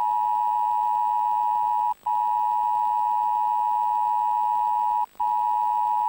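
Emergency alert system attention tone: a steady electronic tone just under 1 kHz, broken twice by a brief gap, about two and five seconds in.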